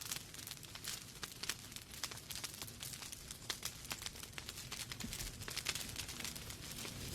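Wood fire in a fireplace crackling, with many irregular sharp pops and snaps over a soft steady hiss.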